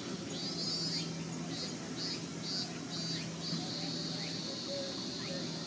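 Cicadas chirring in the trees: shrill pulses about two or three a second that run together into a steady buzz a little after halfway, over a steady low hum.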